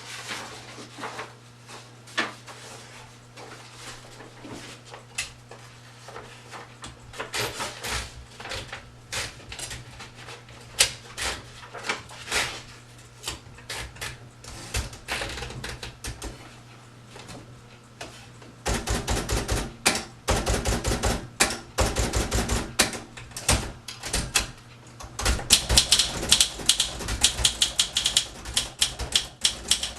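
Typing on a 1961 Olympia SM 4 manual portable typewriter: irregular sharp clacks of the typebars striking. The keystrokes come sparsely at first, then in a steady run, and grow louder and denser in the last third.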